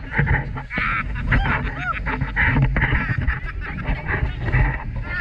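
Several people shrieking and yelling in short bursts while riding a speedboat-towed inflatable ride, over a steady low rumble of wind and engine.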